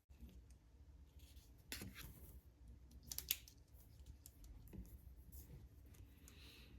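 Quiet desk-work handling sounds of paper and stationery: scattered clicks and several short scratchy strokes.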